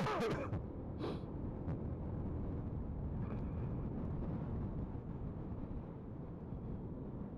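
Kymco Xciting maxiscooter riding at road speed: a steady rush of wind on the helmet-mounted microphone mixed with the engine running. A short sound falling in pitch is heard at the very start, then a brief hiss about a second in.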